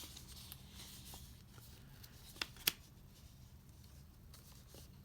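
Paper and card album inclusions being handled: soft rustling, then two sharp clicks close together about two and a half seconds in, over a faint steady low hum.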